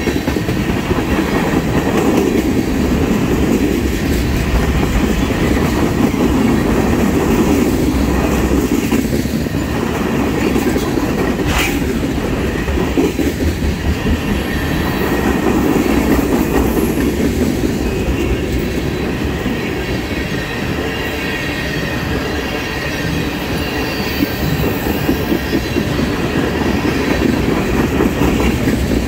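Railroad tank cars of a freight train rolling past close by: steady rumble and clatter of steel wheels on the rails, with a brief sharp noise about twelve seconds in.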